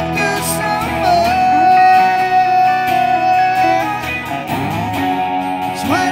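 Live guitar music, acoustic guitar with electric guitar. About a second in, one long note slides up and is held for nearly three seconds, and sliding notes follow near the end.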